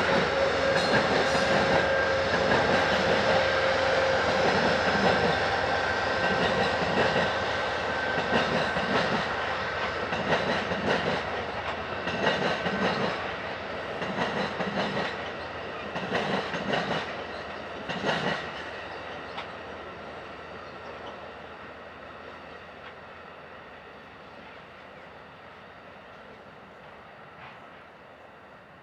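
Amtrak passenger train rolling into a station, wheels clicking over rail joints. The clicks come further apart as the train slows. The train noise then fades away over the last ten seconds.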